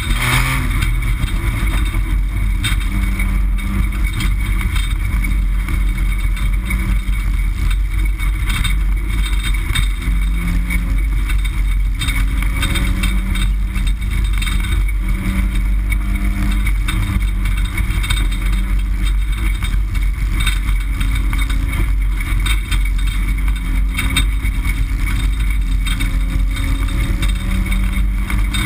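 Dirt-track race car's engine running hard in the stripped cockpit, its note rising and falling with the throttle at a steady high level.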